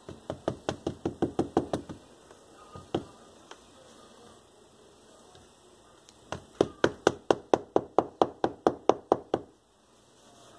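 Quick, light taps of a hand tool driving a metal tack strip's tacks through sofa fabric into the wooden frame. Two runs of taps at about six a second, with a couple of single taps between them.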